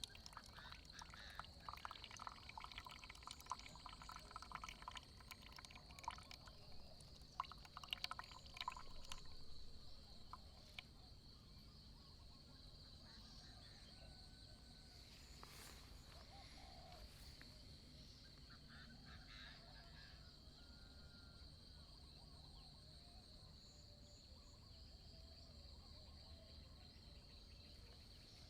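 Water being poured faintly to brew coffee, an irregular trickle with small clicks for about the first ten seconds. It then gives way to near silence with a steady, faint high-pitched hum.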